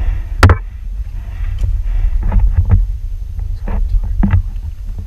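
Steady low rumble of wind buffeting the microphone aboard a boat at sea. One sharp, loud knock comes about half a second in, and several softer knocks follow later.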